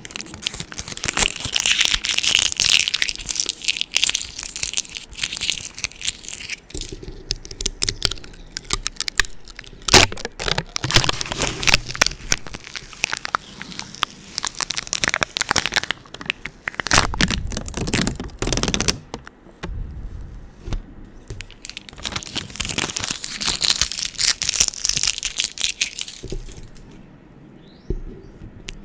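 Adhesive tape on a microphone, handled fast and aggressively: sticky crackling and tearing with dense clicks. It goes quieter for a moment near the end.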